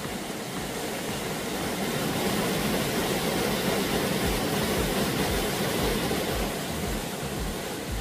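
Steady rush of a mountain stream's flowing water, swelling a little in the middle, with soft low thumps about twice a second in the second half.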